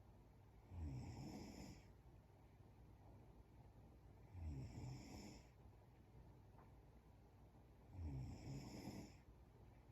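A sleeping woman snoring faintly: three snores about three and a half seconds apart, each lasting about a second.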